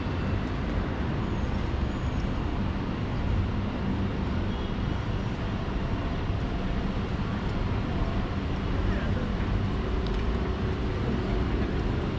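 Steady street ambience: a low hum of distant road traffic.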